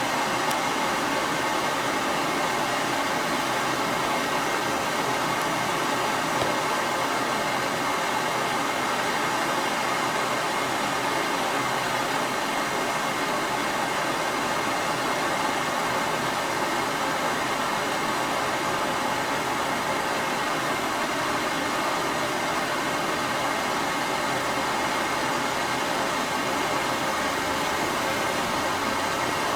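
Steady hissing rush of a flame burning the alarm panel's key-bus wiring during a burn test.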